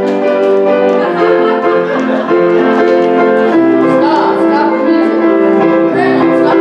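Instrumental music played as the cue for the crowd to bow, a tune of held notes over chords that move steadily from note to note.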